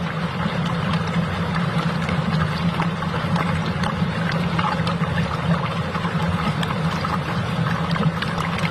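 Motorised marble run toy running: a steady low motor hum with many small clicks of marbles rolling and rattling along the track, over the rush of running water.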